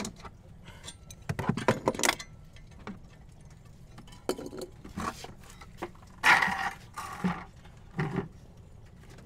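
Metal clinks, rattles and scrapes of a T-handle tap wrench and screw extractor (easy-out) being fitted and turned in a snapped stainless steel bolt. They come in short clusters, with the loudest, longer scrape a little after six seconds.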